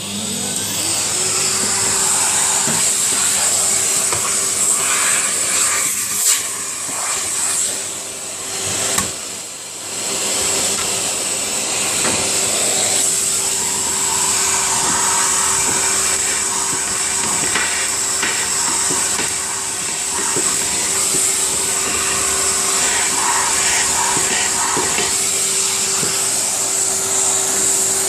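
A Numatic Henry vacuum cleaner running steadily, with a constant motor hum and a high hiss of air, as it vacuums out a Hotpoint 9327 tumble dryer. The motor settles to full speed in the first second. The suction sound shifts as the nozzle moves about, with a couple of knocks about six and nine seconds in.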